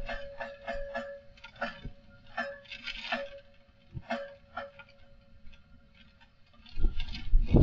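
Strong wind: irregular clicking and rattling over a faint steady ringing tone, then a loud gust buffeting the microphone near the end.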